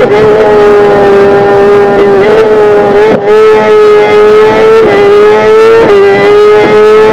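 Kawasaki ZX-10R's inline-four engine running hard at high, nearly steady revs, with small brief wavers in pitch every second or two.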